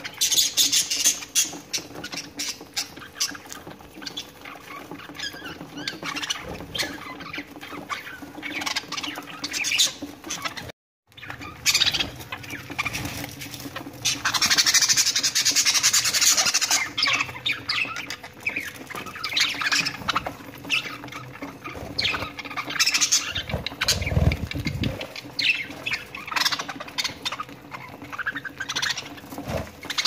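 A flock of budgerigars chattering and squawking continuously, with a brief break about eleven seconds in. A faint steady hum sits underneath.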